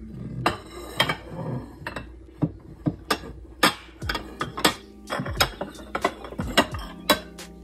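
Bowls clinking and knocking against each other as they are stacked into a cabinet: a dozen or so sharp, irregular clinks.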